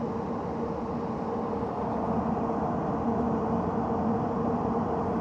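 HVAC equipment running: a steady mechanical hum with a low, even tone, getting a little louder about two seconds in.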